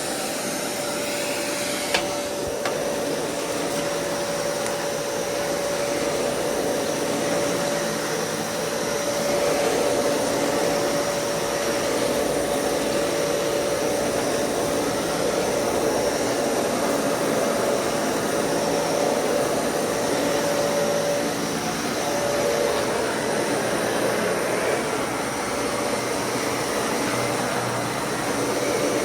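Dyson Cinetic Big Ball upright vacuum cleaner running steadily while vacuuming a floor, its motor noise carrying a steady whine.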